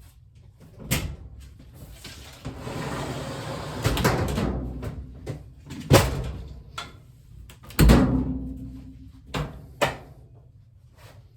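Knocks, thumps and scraping of someone climbing down a ladder: a few seconds of scraping near the start, then several sharp bangs. The loudest bang, just past the middle, rings on briefly.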